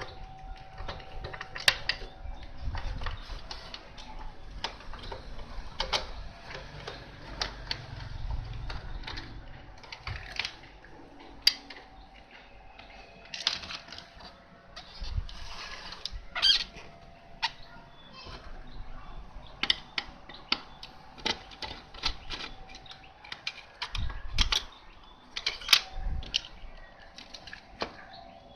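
Irregular clicks, taps and a few dull knocks of small plastic and metal parts being handled, as the emergency light is worked on to reach its battery.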